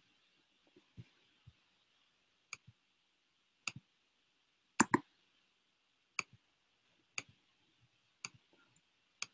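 Sharp computer clicks, about one a second, as a slide show is clicked forward to its end; the loudest is a quick double click near the middle. A faint steady hiss lies underneath.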